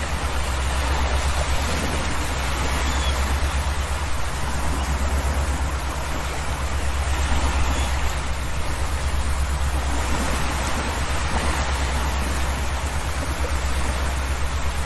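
Ferry underway at sea: a steady low drone from the ship under an even rush of wind and water from the hull cutting through choppy waves.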